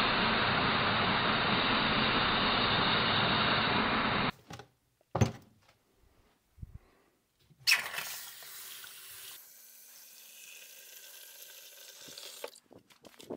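Steel threaded stud ground on a belt sander, a steady grinding noise that cuts off about four seconds in. Then a few sharp clanks as the studs go into a plastic pitcher, and about five seconds of water running into it.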